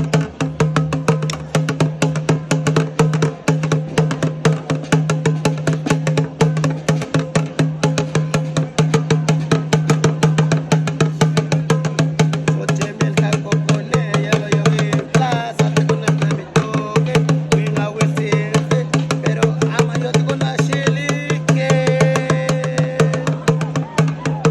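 A drum beaten in a fast, even rhythm, its strokes ringing over a steady low tone. Voices chant over it around the middle and again near the end.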